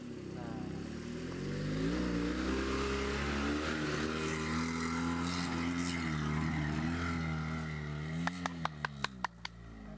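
Small car engine revving hard under load, climbing in pitch about a second in, holding with small surges, then easing off near the end. A quick rattle of sharp knocks follows as the engine drops.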